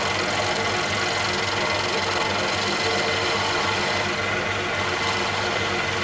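Wood lathe driven by a variable-frequency drive running steadily, while a hand-held turning tool cuts a small knob on the spinning wood.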